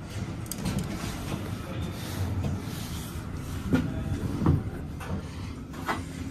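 Metro station elevator car running with a low steady rumble, with two sharp knocks a little under four seconds in and another smaller knock near the end.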